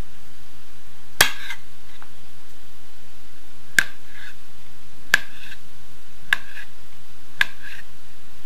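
Kitchen knife slicing through cooked beetroot and knocking on a wooden cutting board, five sharp taps at an uneven pace, each with a short ring. A steady low hum runs underneath.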